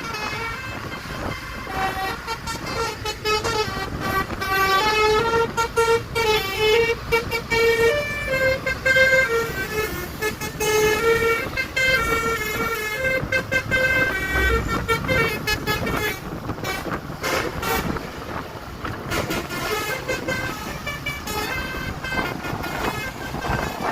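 Tour bus's basuri multi-tone musical air horn playing a stepping melody of held notes, over road and engine noise. The tune is loudest for the first two-thirds and fainter near the end.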